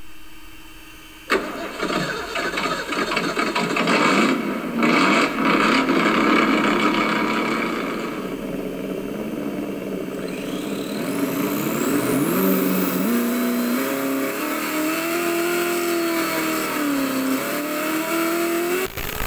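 RC car engine sound kit playing a simulated car engine through its speaker: it starts suddenly about a second in and revs in several blips, then a high whine sweeps upward around the middle and the engine settles to an idle whose pitch wavers up and down.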